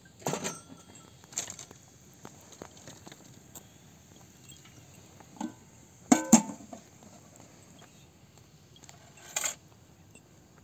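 Metal cooking pot and lid being handled, giving a few scattered clanks and knocks; the loudest is a double clank with a short metallic ring about six seconds in.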